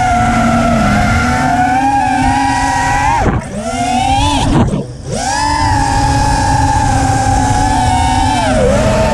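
FPV racing quadcopter's brushless motors whining steadily, their pitch falling sharply and climbing back twice, about three and a half and five seconds in, as the throttle is chopped and punched again, with a smaller dip near the end. Rushing wind noise sits under the whine.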